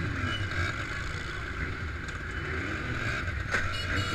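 Motorcycle engines running at low parade speed, a steady low rumble, with faint voices from the crowd.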